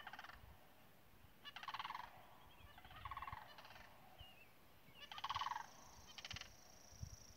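Sandhill cranes calling: rolling, rattling bugle calls in bursts of about half a second, a second or two apart.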